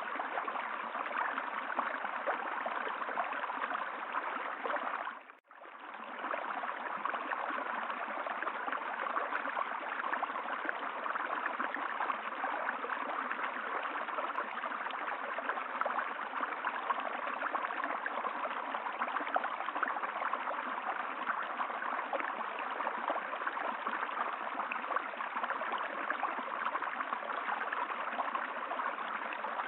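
Steady rush of running water. It drops out for a moment about five seconds in, then fades back in and carries on.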